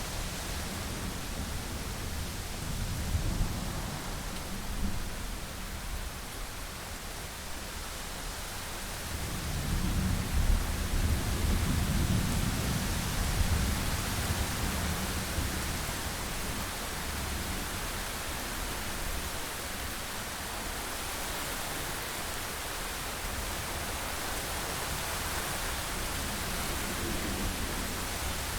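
Steady rain with low rolling thunder, a long rumble swelling about nine seconds in and fading by about fourteen seconds.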